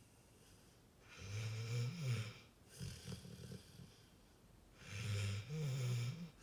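A sleeping pit bull snoring: two long, low snores about four seconds apart, with a shorter, softer fluttering breath between them.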